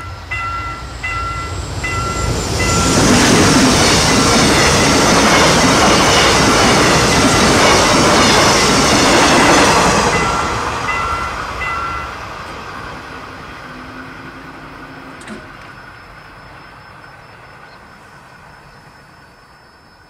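Railroad crossing warning bell ringing in a steady repeating chime as a Mugunghwa-ho passenger train hauled by an electric locomotive passes over the crossing. The train noise is loudest from about 3 to 10 seconds in, then dies away. The bell stops about 11 seconds in.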